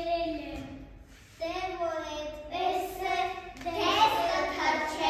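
A child singing a short line in long, held notes. Near the end other children's voices join in and overlap.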